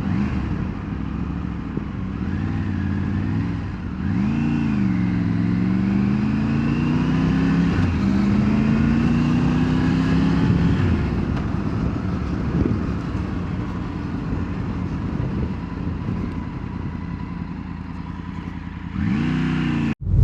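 Motorcycle engine accelerating through the gears: the revs climb, drop at two shifts and climb again, then ease off, with a steady rush of wind and road noise. There is a brief rev again near the end.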